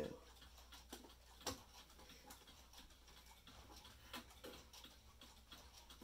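Faint ticking of a mechanical mantel clock, with a few louder clicks and knocks as its hinged glass bezel is opened by hand.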